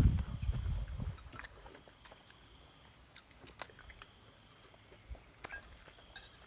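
Faint eating sounds: a handful of small clicks and crunches of chewing, spaced irregularly, after a low rumble fades out in the first second.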